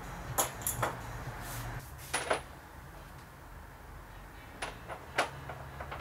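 Sharp clicks and taps of hand tools and parts against a washing-machine tub half: three quick ones near the start, a pair about two seconds in, and a few more near the end. Some ring briefly and high, like metal. A low steady hum runs underneath.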